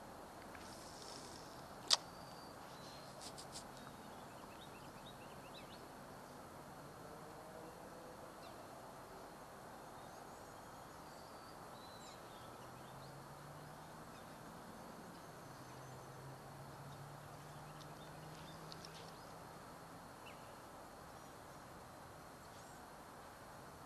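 Quiet outdoor ambience with a faint steady hiss, broken by one sharp click about two seconds in and a few lighter ticks just after.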